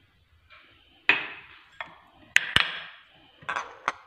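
Dishes handled on a kitchen counter: a few sharp knocks and clinks of glass dishes and bowls being picked up and set down, the sharpest about two and a half seconds in.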